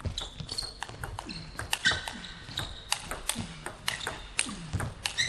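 Table tennis rally: a plastic ball struck back and forth by rubber-faced paddles and bouncing on the table, a quick run of sharp pinging clicks.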